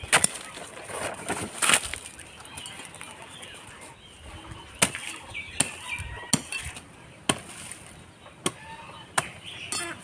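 A long hand blade chopping into the fibrous base of a giant taro (man kochu) plant, cutting out the corm: about eight sharp chops, irregularly spaced and a second or more apart.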